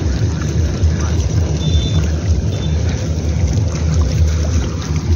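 Wind buffeting the microphone: a steady, heavy low rumble that wavers in strength. Two faint, short high tones come through about two seconds in.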